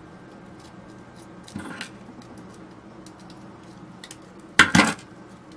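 Small metal parts and hand tools being handled while a radio control box is taken apart: faint ticks, a brief scrape about one and a half seconds in, and a loud double clatter near the end.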